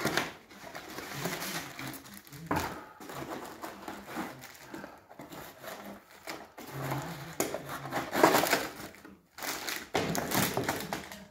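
Plastic bags of kit parts crinkling and rustling in irregular bursts as they are handled and lifted out of a packing tray.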